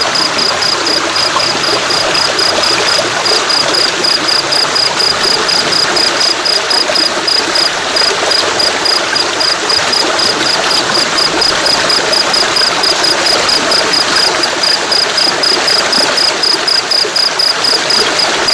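Steady rush of flowing water, with an insect chirping over it in a high, rapid, even pulse.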